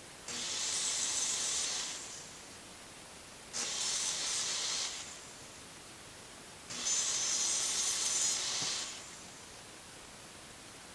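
Three separate bursts of hissing, each starting suddenly and lasting about one and a half to two seconds.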